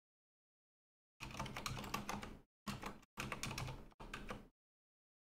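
Computer keyboard typing: quick runs of keystrokes starting about a second in, broken by short pauses, and stopping a little before the end.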